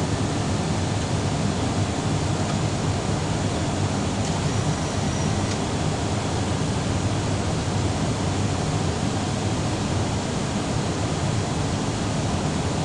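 Steady cabin noise inside an Airbus airliner in flight: an even rush of airflow and engines, deepest in the low end.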